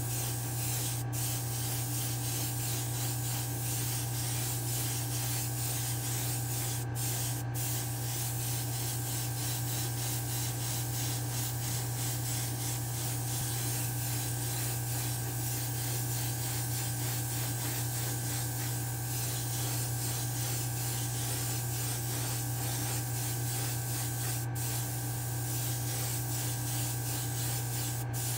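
Airbrush spraying paint inside a hobby spray booth with the booth's fan running: a steady hiss over a constant low hum, broken by a few brief dropouts.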